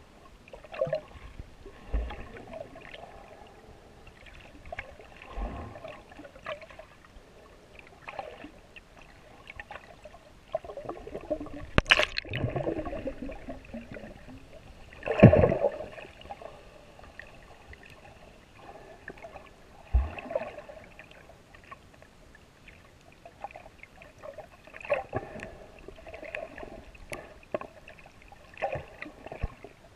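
Water sloshing and gurgling around a GoPro in its waterproof housing while snorkeling, muffled, with irregular surges and thumps every few seconds; the loudest surge comes about halfway through.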